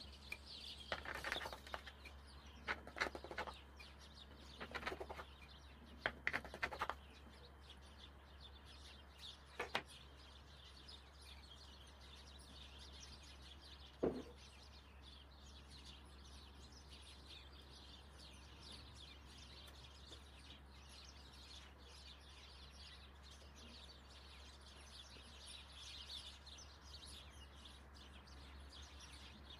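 Faint, scattered bird chirps over a low steady hum, with a single sharp click about fourteen seconds in.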